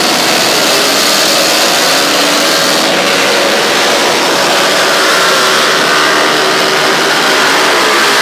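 Motorcycle engines revving hard, a loud continuous din whose pitch wavers up and down.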